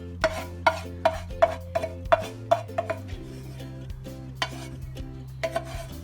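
Background music of steady low chords, with a run of sharp ringing clicks about two to three a second for the first three seconds, then a few more near the end.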